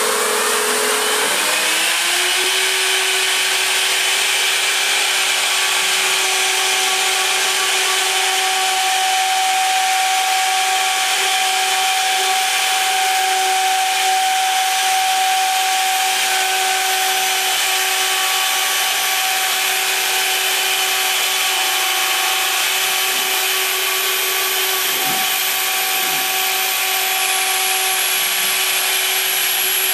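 High-frequency spindle of a MillStep PA1050 CNC gantry engraving machine, rising in pitch as it spins up over the first couple of seconds, then a steady high whine over a hiss while its 60° engraving cutter works the plate.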